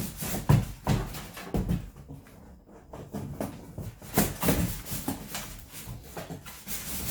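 A PC case being opened and handled by hand: a string of irregular knocks, taps and rustles.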